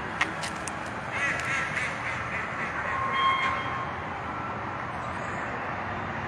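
Ducks quacking: a quick run of calls about a second in, then a louder call near the middle, over steady background noise.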